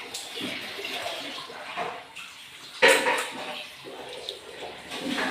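Wet eating and slurping sounds from a mukbang, with a sharp knock or clatter about three seconds in.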